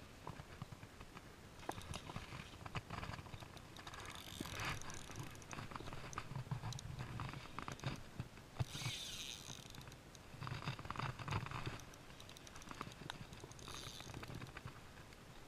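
Irregular rustling, light knocks and clicks, with two brief hissing swishes about four and nine seconds in: handling and brushing noise on a handheld camera's microphone.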